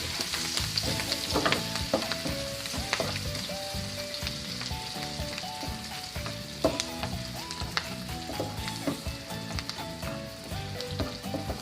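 Garlic and hotdog frying in hot oil in a pan, sizzling steadily, with the clicks and scrapes of a spatula against the pan as it is stirred.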